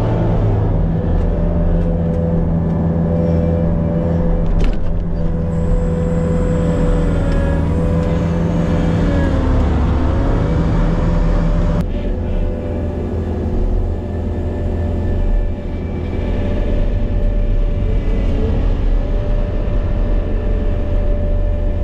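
Diesel engine of a farm loader running steadily, heard from inside its cab, with the engine note dipping and recovering about ten seconds in.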